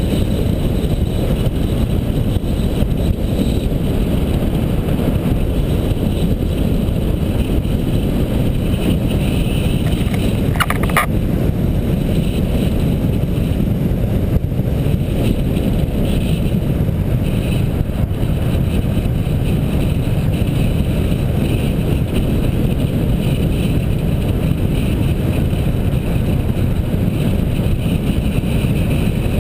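Wind buffeting the microphone of a camera moving fast downhill, a steady low rumble, with a brief high squeal about eleven seconds in.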